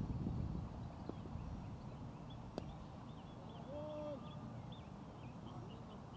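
Wind rumbling on the microphone and small birds chirping. About two and a half seconds in there is one sharp knock of the cricket ball, and a short held call comes a little over a second later.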